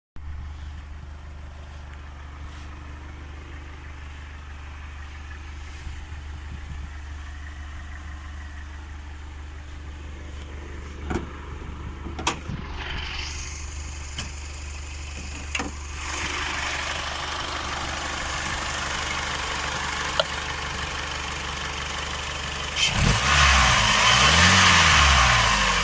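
Car engine idling steadily; about halfway through a high-pitched whistle sets in over it and the sound grows louder. Near the end the engine is revved a few times, its pitch rising and falling.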